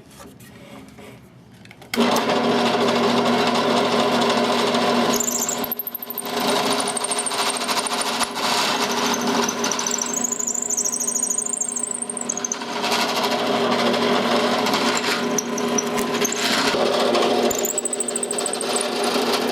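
Electric drill boring a hole all the way through a small wooden block for a tightening bolt. The motor starts suddenly about two seconds in and runs steadily under load, dipping briefly once, with a high wavering squeal from the bit at times.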